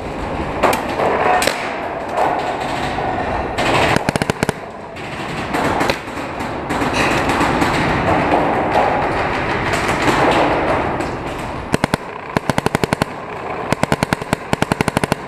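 Paintball markers firing in rapid bursts of about ten shots a second, several bursts close together in the second half, over a continuous background noise in the cave.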